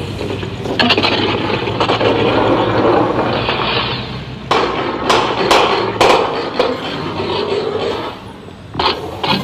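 Noise-based electronic soundtrack played through portable amplifiers: surges of rushing noise that start and cut off abruptly, several times over.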